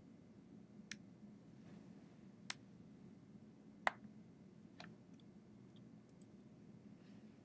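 Very quiet room tone with a low steady hum, broken by four sharp isolated clicks in the first five seconds, the loudest about four seconds in, then a few fainter ticks.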